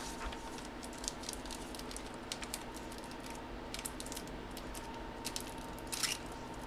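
Light clicks and small rustles of trading cards and their packaging being handled, with a faint steady hum underneath and a slightly louder rustle about six seconds in.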